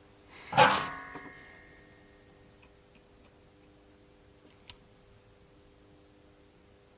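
A single sharp metallic clink about half a second in, ringing briefly as it fades, during bench soldering work; a faint tick follows near the middle over a low steady hum.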